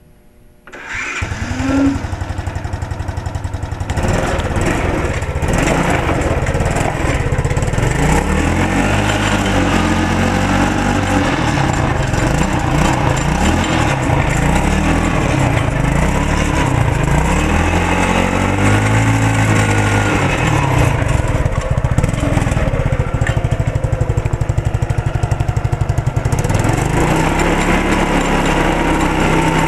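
Small single-cylinder four-stroke engine of a 2006 Buyang kids' ATV starting about a second in and then running. It is revved up and down repeatedly, then settles to a steadier fast idle near the end.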